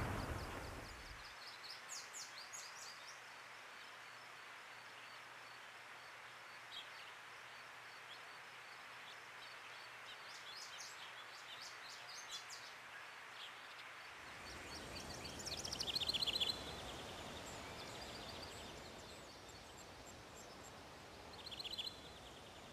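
The rumble of a blast test fades out in the first second. After it comes faint outdoor background hiss with birds chirping now and then in short bursts.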